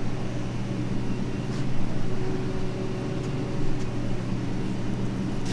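A steady, low mechanical hum with a droning tone under a faint rushing noise, from a running machine, with a few faint clicks.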